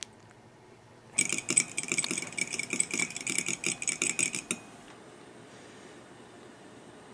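Metal spoon beating egg in a ceramic bowl: rapid ringing clinks against the bowl, about six a second, starting about a second in and stopping after about three seconds, leaving a faint hiss.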